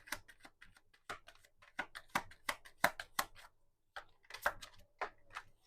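Tarot deck being handled and shuffled: an irregular run of small, sharp clicks and taps of the cards, several a second, stopping just before the end.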